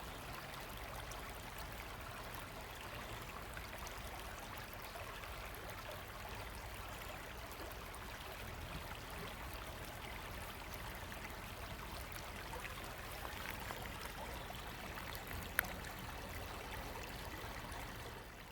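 River water running steadily: a constant rush of flowing water, with a single sharp click near the end.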